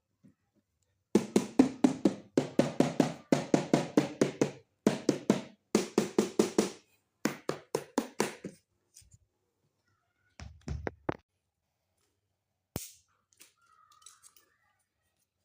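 The pads of a Roland SPD-20X electronic percussion pad being struck in quick runs of taps, each with a short low ring, for most of the first nine seconds. A few low thuds follow, then one sharp click.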